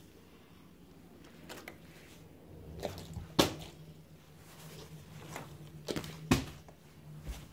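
A plastic water bottle being flipped and landing on a carpeted floor: a few knocks and thuds, the two loudest about three seconds apart.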